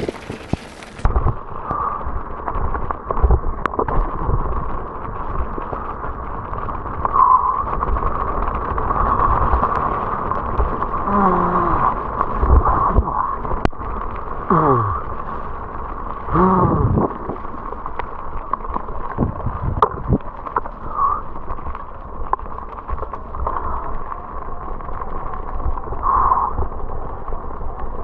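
Mountain bike rolling fast down a wet gravel trail: tyres crunching over loose stones, the bike rattling over bumps, and wind buffeting the microphone with a steady rumble.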